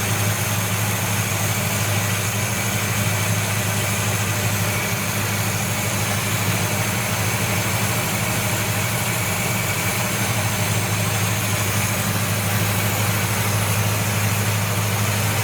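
1970 Buick Wildcat's V8 with a Quadrajet four-barrel carburetor idling steadily while its idle is being set during a tune-up.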